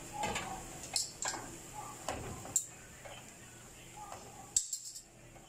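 A few sharp clicks and taps as small potatoes are set one by one into a frying pan of garlic sauté, with the bowl and potatoes knocking against the pan.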